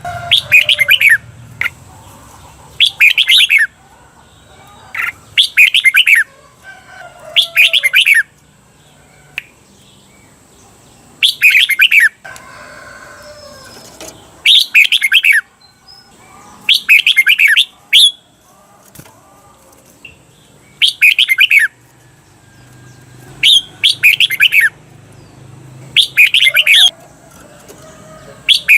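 Red-whiskered bulbul singing its 'berl' (doubled) song: loud, quick warbled phrases about a second long, repeated every two to three seconds. This is the song style keepers play to train caged bulbuls.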